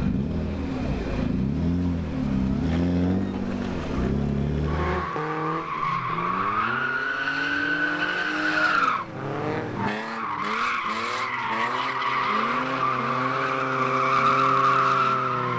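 BMW E36 drift cars sliding: engines revving up and down, and from about five seconds in a steady, high tyre squeal that holds through the rest, with a short break about nine seconds in.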